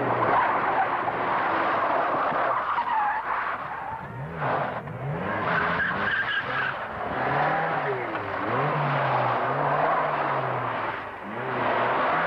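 Ford Sierra rally car's engine revving hard and dropping back again and again as it lifts and changes gear through a slide. Loud tyre and gravel noise runs under it.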